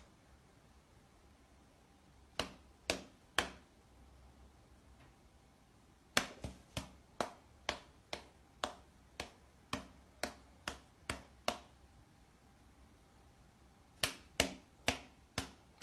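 Sharp taps over a quiet room: three about half a second apart, then a steady run of about a dozen at roughly two a second, then four more near the end.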